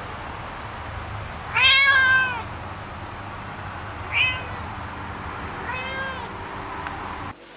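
Domestic cat meowing three times. The first meow, about one and a half seconds in, is the longest and loudest, with a rising-then-falling arc. Two shorter meows follow at about four and six seconds.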